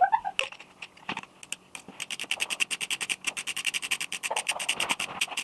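Rapid, even ratchet clicking, a fast run of sharp ticks that starts about a second and a half in and keeps going, typical of a socket wrench ratcheting or a bike hub's freewheel clicking. A short squeak comes at the very start.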